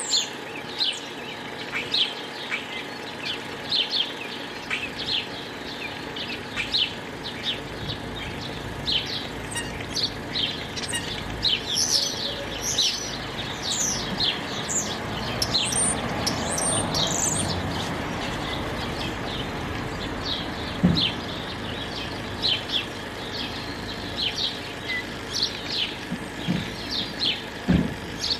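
Many small birds chirping in a busy chorus, with quick, sharp, falling chirps coming thick and fast. A low rush of background noise swells and fades about halfway through.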